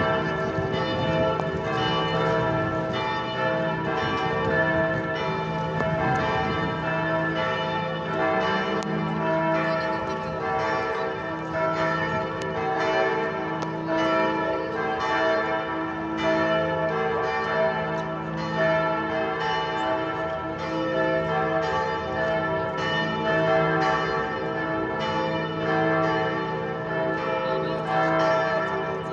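Several church bells ringing together in a continuous peal, their strokes overlapping so that the tones hang and blend without a pause.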